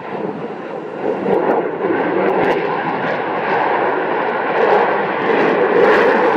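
Aircraft in flight: a dense engine noise with a steady whine running through it, growing louder about a second in and holding loud.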